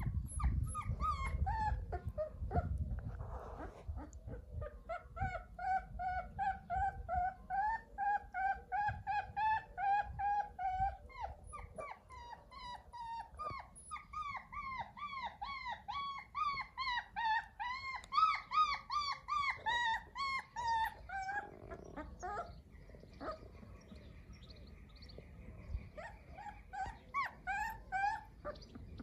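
Puppy crying: a long series of short, high whimpers, about two or three a second, pausing briefly around three-quarters of the way through and resuming near the end.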